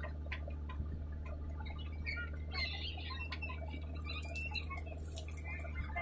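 JCB backhoe loader's diesel engine running steadily under hydraulic load as the backhoe arm lifts and swings a bucket of soil, with scattered light clicks and ticks over the engine hum.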